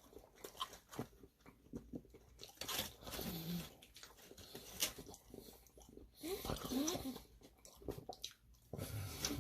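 Close-up chewing and biting of honey chipotle chicken wings: irregular wet clicks, smacks and soft crunches of a mouth eating.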